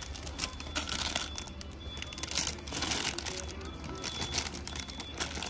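Clear plastic bags crinkling in irregular rustles as bagged toy figures are handled, over faint shop background music.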